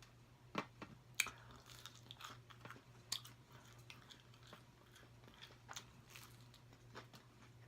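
A person chewing a mouthful of fast food close to the microphone: faint, scattered wet mouth clicks and soft crunches, with a few sharper ones in the first three seconds.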